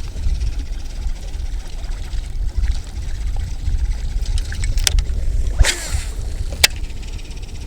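Strong wind buffeting the microphone in a steady low rumble. A sharp click about five seconds in, a brief rushing noise just before six seconds, and another sharp click soon after.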